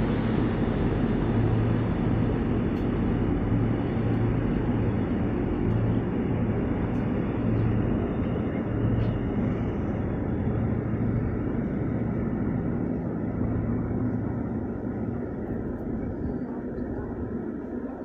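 Chemical tanker Stolt Lotus's engine droning steadily with a low pulsing hum, over the rush of its churning wake, fading over the last few seconds as the ship draws away.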